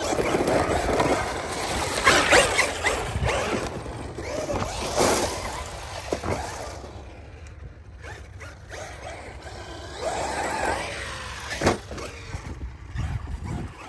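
Traxxas XRT Ultimate RC monster truck being driven, its electric motor whining and its tyres rolling over the ground, louder in the first half and quieter later on.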